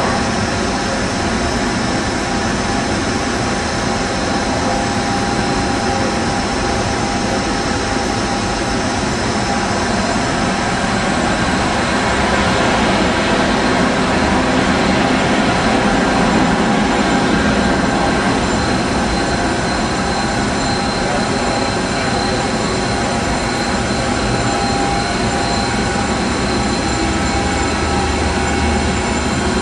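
Steady machinery noise of an industrial boiler room, a continuous drone with a constant high whine on top, swelling slightly about halfway through.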